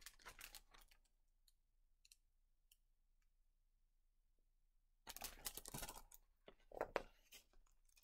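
Mostly near silence, broken by soft rustling of a picture book's paper pages being handled and turned: a brief rustle at the start, a burst of about a second about five seconds in, and a shorter one near seven seconds.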